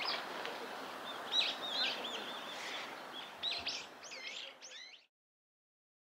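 Small birds chirping, with a short trill and then a quick run of looping notes, over a steady outdoor background hiss. The sound cuts off abruptly about five seconds in.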